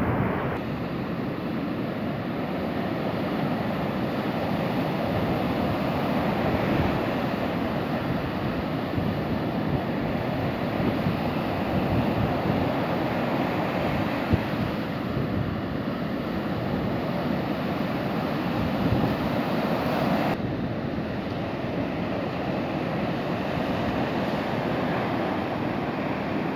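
Steady rushing wash of ocean surf breaking on a sandy beach, with wind buffeting the microphone.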